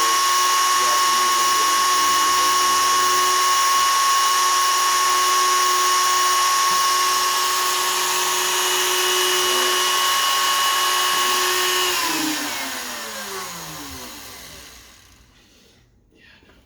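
CNC router spindle turning a 1/8 in spiral bit at 20,000 rpm, a steady high whine; about twelve seconds in it is switched off and its pitch falls as it spins down to a stop over about three seconds.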